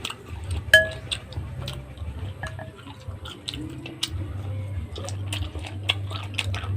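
Cutlery and dishes clinking during a meal, with one sharp ringing clink just under a second in among many small clicks, over a steady low hum.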